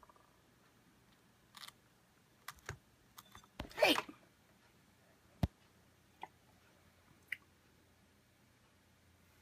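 Handling noise from a phone filming a screen: a few scattered sharp clicks and taps, with a louder rubbing, sweeping sound about four seconds in as the phone is moved.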